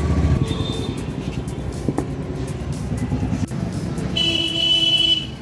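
A motor vehicle engine running steadily, with a few light clicks and a brief high steady tone about four seconds in.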